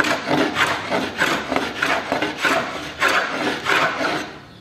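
Metal hand plane worked in quick back-and-forth strokes, about two to three a second, over a hard angelim pedra bed rail, shaving off old glue residue down to bare wood. The strokes stop shortly before the end.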